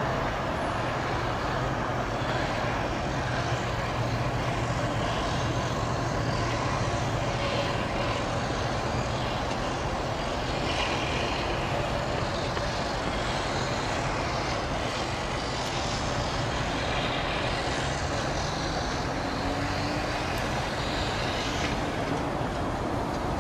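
Steady, even rumble of heavy vehicle noise, with a low hum through the first several seconds and a faint rising engine note near the end.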